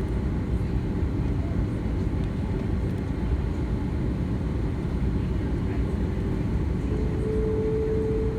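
Steady low rumble inside the cabin of an Airbus A330-200 airliner, engines and air running. A steady tone joins in about seven seconds in.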